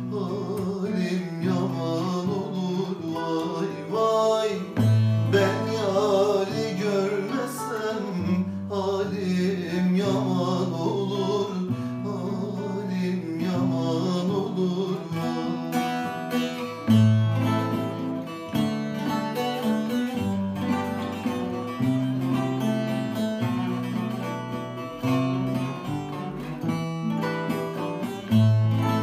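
Instrumental interlude of a Turkish folk song: a nylon-string classical guitar and a small bowl-backed lute plucked together, a fast melody over a repeating bass pattern.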